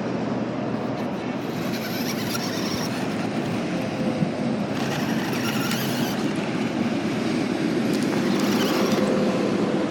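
Remote-control toy car running, a steady whirring and rolling noise with a faint whine that comes and goes.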